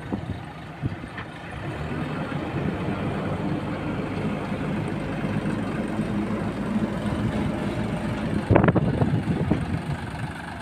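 Sonalika DI 740 III tractor's diesel engine running steadily as the tractor drives closer, pulling a brick-making machine; its hum grows louder after the first couple of seconds. A brief louder sound breaks in about eight and a half seconds in.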